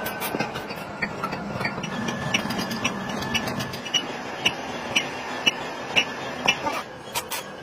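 Molding sand being rammed into a steel casting flask with a hand rammer: a run of strikes about two a second, with some sharp clinks, over a steady noisy background.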